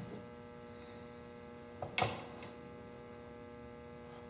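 Steady electrical mains hum, with a sharp click about two seconds in as the spinning reel is handled.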